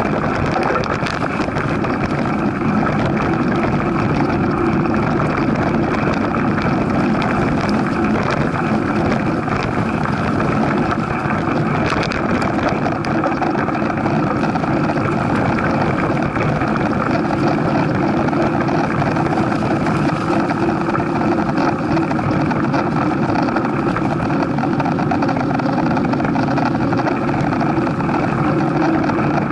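Steady rumble of a mountain bike riding over a sandy dirt trail, with tyre noise and wind buffeting a bike-mounted action camera's microphone.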